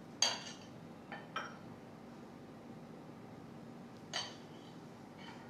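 Metal spoon clinking against glass bowls as batter is spooned out: a sharp clink near the start, two lighter ones about a second later, another clear clink about four seconds in and a faint one near the end.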